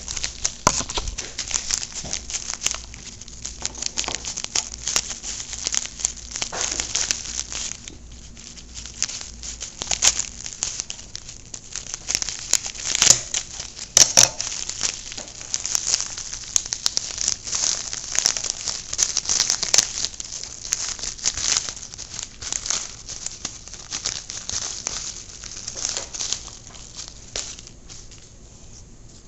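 Packaging being handled and opened by hand: continuous irregular crinkling and rustling with sharp crackles, loudest twice around the middle.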